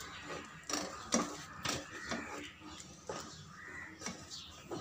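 A spatula stirring thick, chunky tomato sauce in a nonstick frying pan, with a series of soft scrapes and knocks against the pan.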